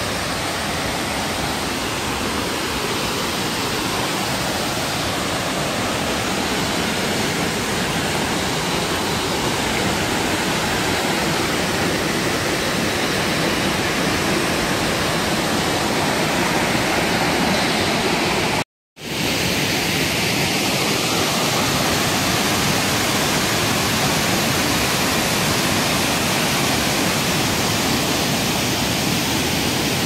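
Waterfall pouring into a rocky pool: a steady, dense rushing of falling water. It cuts out for a split second a little past the middle.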